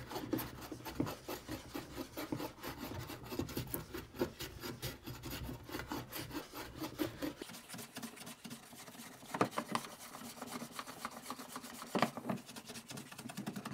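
Veritas low-angle jack plane shaving across the end grain of an oak and sycamore chessboard in repeated rough strokes, levelling the top. A couple of strokes, about nine and a half and twelve seconds in, are louder.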